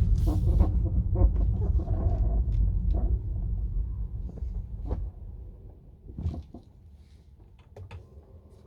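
Tesla Model 3's front suspension giving a dull squeak and creak in short irregular bursts over a low rumble of rolling tyres: the sign of a worn first-generation front control arm. The rumble fades about halfway through as the car slows to a stop, leaving only a few faint creaks.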